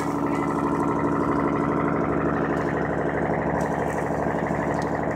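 Fishing boat's engine running steadily, an even drone that holds unchanged throughout.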